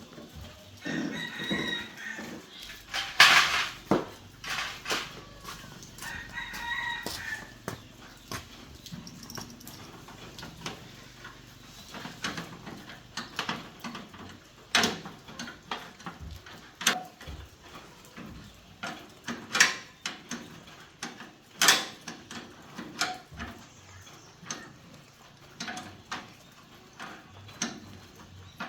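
A rooster crows twice, about a second in and again about six seconds in. Scattered sharp knocks and taps run through the whole stretch; the loudest comes about three seconds in.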